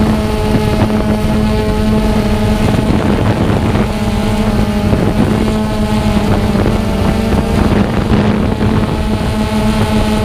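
Xiro Explorer quadcopter's motors and propellers humming steadily in flight at an even pitch, picked up by the GoPro carried on the drone, with wind buffeting the microphone.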